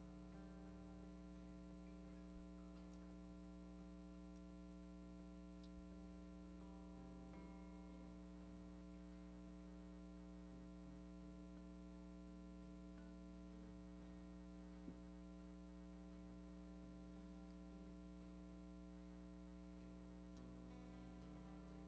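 Near silence filled by a low, steady electrical hum, with a faint click about fifteen seconds in.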